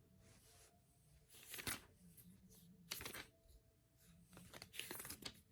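Faint rustling of paper pages, likely a Lego instruction booklet being leafed back through, in three or four short bursts.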